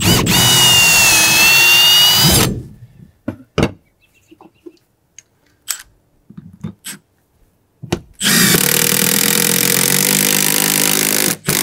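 Cordless drill running hard in two runs: about two and a half seconds of drilling a pilot hole into wood, then, from about eight seconds in, a longer run driving the screw that anchors a solar roof-mount base. A few light clicks and knocks fall between the two runs.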